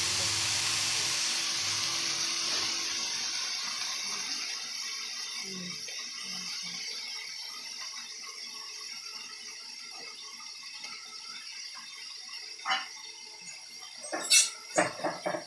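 Shredded cabbage sizzling in a metal kadhai on a gas stove: a hiss that fades gradually. Near the end come a few short, sharp knocks.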